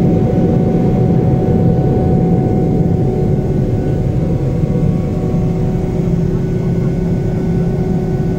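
Steady cabin noise of a Boeing 777 climbing after takeoff: its GE90 jet engines and the airflow make a loud, even rumble with a few steady hums on top.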